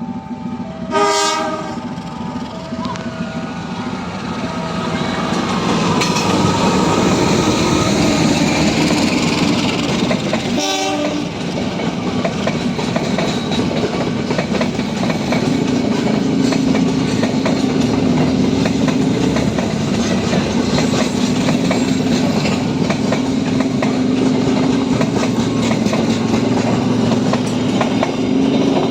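KA Matarmaja passenger train sounding its horn in two short blasts, one about a second in and one about ten seconds later, given as a greeting. The train runs close by with a loud, steady rumble and wheels clacking over the rail joints.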